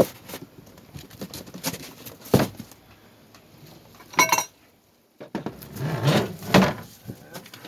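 Cardboard box and packing being handled while a microwave is unpacked: scattered knocks and scraping, with a short squeak about four seconds in.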